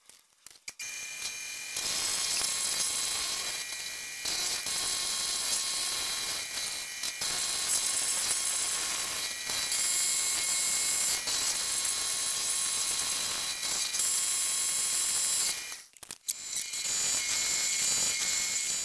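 Milling machine cutter running through a block of aluminium: a steady, high metallic whine over the hiss of cutting. It pauses briefly a few times, longest about three-quarters of the way through.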